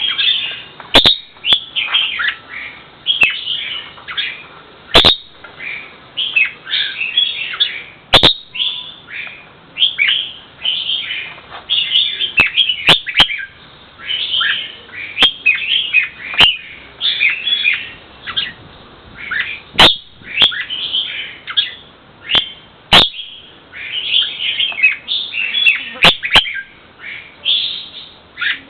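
A bird chirping and calling without pause, a rapid run of short, high notes, many sweeping downward, broken now and then by sharp clicks.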